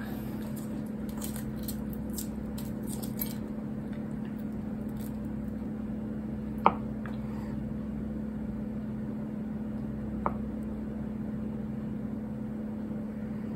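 Boiled egg having its shell peeled away with faint crackling in the first few seconds, then a kitchen knife cutting the egg on a plastic cutting board, with two sharp taps of the blade on the board about seven and ten seconds in. A steady low hum runs underneath.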